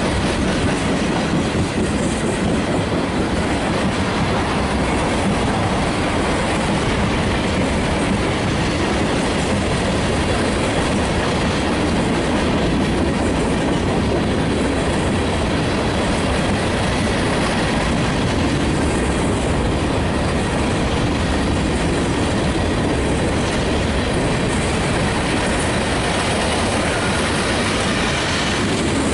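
Freight cars of a long mixed freight train rolling past close by: steel wheels running on the rails in a steady, unbroken noise.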